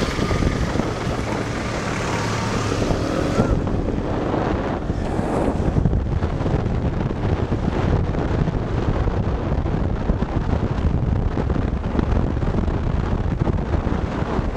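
Wind buffeting the microphone of a moving CFMoto NK400 motorcycle, over a steady low rumble of engine and road. In the first few seconds a pitch glides up and down above the rumble; about three and a half seconds in the sound turns duller.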